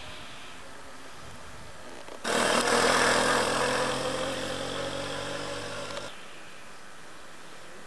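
A motor vehicle engine running loud, starting abruptly a couple of seconds in and fading over about four seconds before cutting off suddenly. Faint steady background hiss before and after it.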